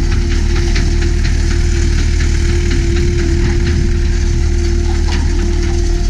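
John Deere 317 skid steer's diesel engine running steadily as the machine drives and pivots on pavement, with a steady whine held over the engine note.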